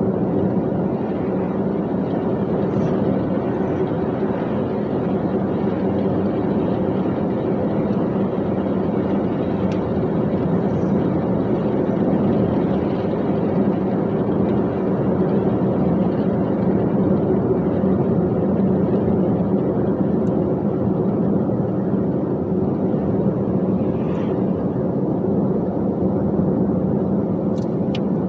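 Dump truck engine droning at a steady pitch, with road noise, while cruising at a constant speed.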